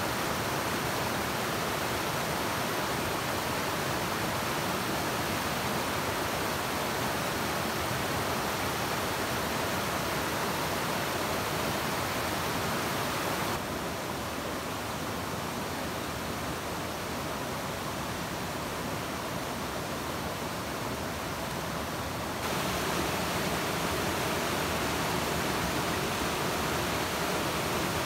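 Mountain stream rushing over rocks and small rapids, a steady hiss of running water. About halfway through it turns a little quieter and duller for several seconds, then comes back to full strength.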